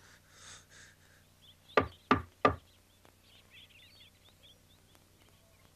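Three quick knocks on a wooden door, about two seconds in.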